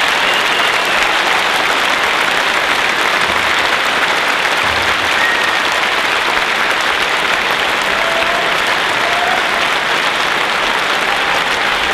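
Large audience applauding steadily, a dense even clapping that keeps going without letting up.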